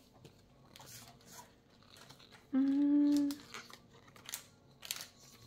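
Paper cards and sheets being handled and rustled, with scattered light clicks and taps. About two and a half seconds in, a woman gives a short steady hummed "mm".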